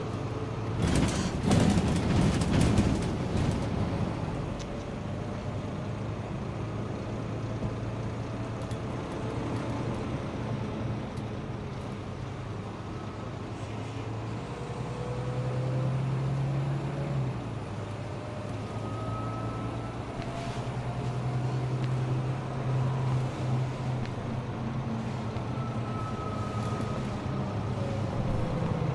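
Interior noise of a moving double-decker bus: a steady low engine drone with a whine that slowly rises and falls as the bus changes speed. A loud clatter of rattles and knocks comes between about one and three seconds in.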